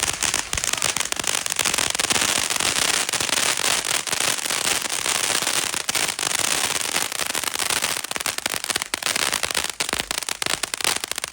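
Consumer firework cake (TNT's Bald and Beautiful) firing: a dense, continuous barrage of crackling effects with many sharp reports.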